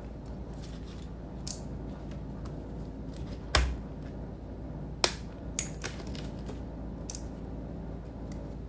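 Rubber dam punch clicking as holes are punched through a rubber dam sheet: about six sharp clicks at uneven gaps, the loudest, with a dull thump, about three and a half seconds in.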